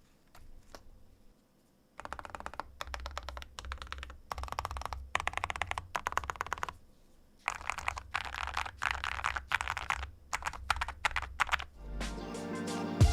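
Fast typing on the Owlab Hellcat Mech-01, a full-metal mechanical keyboard with aluminum keycaps: a few single key clicks, then two long runs of rapid keystrokes with a short pause between. Music comes in near the end.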